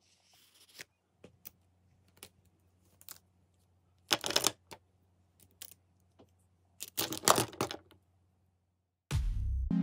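Plastic gel pens clicking and clattering as they are set down on sheets of paper on a desk: scattered light clicks, with two louder clatters about four and seven seconds in. Music starts near the end.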